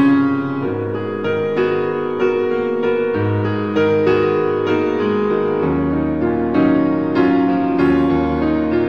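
Background piano music, a gentle melody with sustained chords and a new note roughly every half second.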